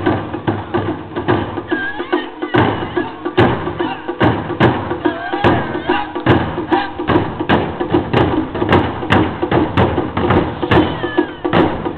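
Japanese taiko drums played Miyake style: barrel-shaped nagado-daiko set low on their sides, struck hard with wooden bachi sticks in a steady driving rhythm, loud regular strikes over a continuous background beat.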